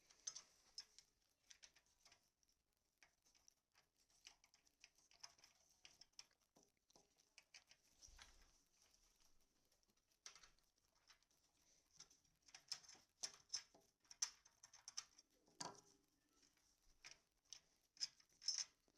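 Faint, irregular clicks, ticks and light scrapes of hand work on a cable box's plastic and metal parts, as a screwdriver and fingers work the CableCARD and a panel loose.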